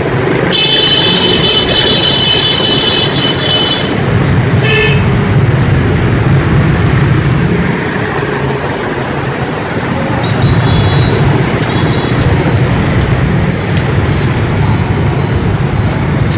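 Busy street traffic, mostly motorbikes running past with a steady engine hum. A horn honks for about three seconds near the start, and a short second toot follows about a second later.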